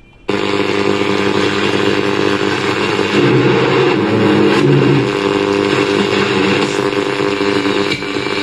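Sony WM-FX101 Walkman radio switched on, giving loud static with a steady buzzing hum, as it is being tuned without a station coming in clearly. The noise starts abruptly just after the start and dips briefly near the end.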